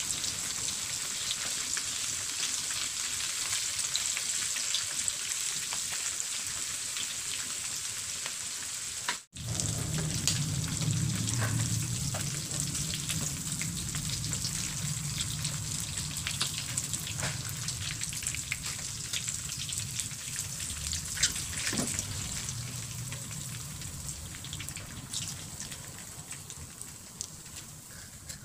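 Breaded shrimp frying in hot oil in a frying pan: a steady sizzle with crackles and occasional clicks. About nine seconds in, after a brief break, a low hum joins. The sizzle fades toward the end.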